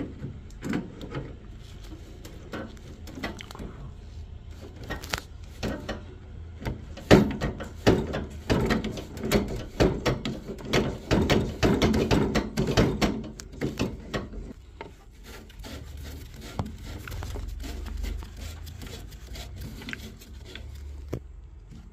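Pliers working a corroded brass plug fitting loose from the boiler's water fittings: irregular scraping, creaking and metallic clicks, busiest in the middle, then dying down after about two thirds of the way.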